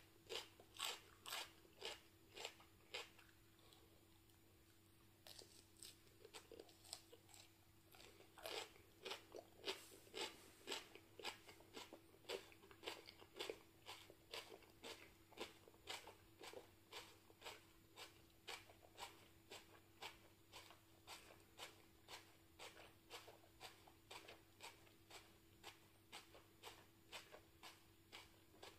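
Close-up mouth sounds of a person chewing a piece of raw hot pepper, a steady crunching about twice a second. The chewing pauses for about two seconds early on, then resumes.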